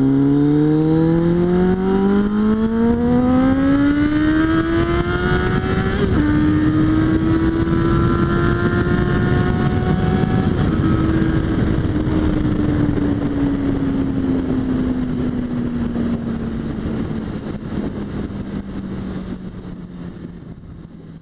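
Suzuki GSX650F's inline-four engine accelerating hard, its pitch climbing steadily, then dropping with a click about six seconds in as it shifts up. A smaller step follows a few seconds later, then the pitch slowly falls as the bike eases off, over steady wind rush, fading out near the end.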